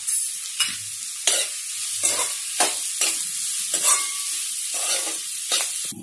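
Sliced onions sizzling in hot oil in a metal kadai, frying toward golden, while a metal spoon scrapes and stirs them against the pan about one and a half times a second.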